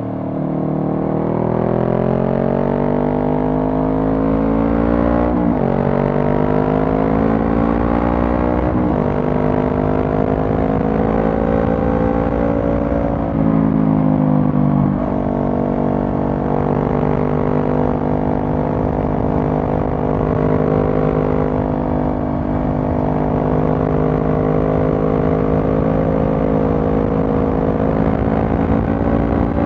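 Honda CB500F's parallel-twin engine through a Mivv GP Pro exhaust, accelerating up through the gears: the pitch climbs, drops sharply at upshifts about five and a half and nine seconds in, shifts again around fourteen seconds, then holds steady at cruising speed.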